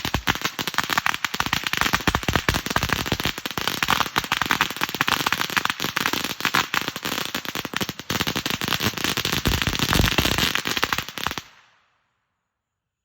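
A long string of about 2000 firecrackers going off in a rapid, unbroken crackle of bangs, which stops suddenly about eleven and a half seconds in as the string burns out.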